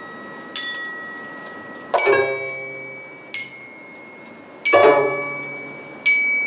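Slow, sparse reconstructed Tang-dynasty ensemble music: five single struck notes on a metal slab chime (fangxiang), about one every second and a half, each left to ring. Deeper string notes sound together with the second and fourth strokes.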